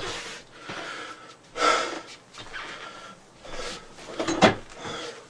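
A man breathing hard and gasping, out of breath from headbanging, in short separate bursts. A sharper burst of noise comes about four and a half seconds in.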